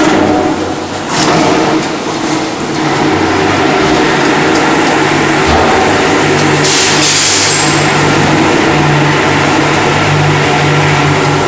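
Airless paint sprayer running steadily while painting, a steady hum under an even hiss, with a louder, sharper hiss about seven seconds in.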